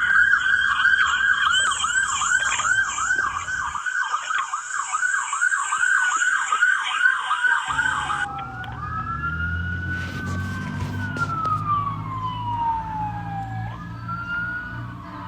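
Police car siren sounding a fast yelp, about three warbles a second, then switching about eight seconds in to a slow wail that falls and rises again. A low steady hum comes in beneath the wail.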